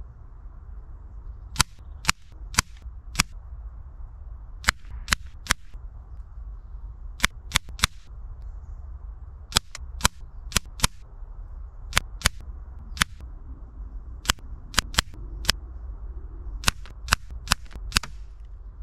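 Air rifle pellets striking a paper target on a wooden post, each a sharp crack. They come in clusters of three or four shots, about two dozen in all, over a steady low rumble.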